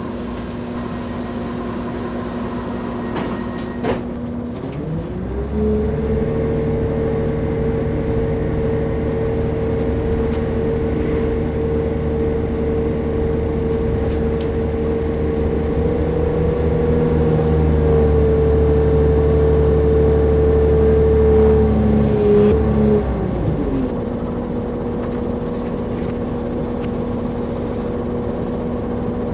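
Class 158 diesel multiple unit's underfloor diesel engine, humming steadily at idle, then revving up about five seconds in. It holds at high revs under power for around eighteen seconds, then drops back to idle.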